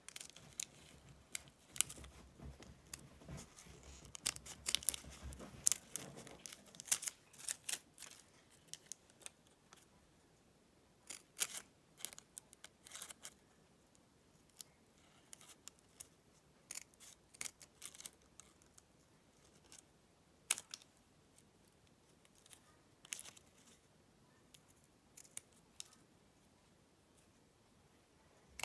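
Small scissors snipping fabric: a scatter of short, sharp snips, closer together in the first half, with handling rustle of fabric and paper during the first few seconds.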